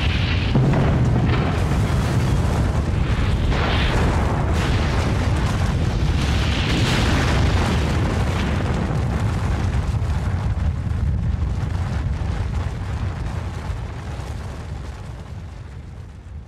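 Sound-effect rumble of an atomic-bomb explosion: a dense, continuous low roar with rolling surges, fading steadily over the last several seconds.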